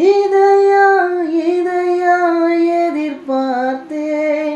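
A Tamil song played through a PA amplifier's speaker: a singer holds one long high note that steps down in pitch about a second in, then sings a few shorter, lower notes near the end.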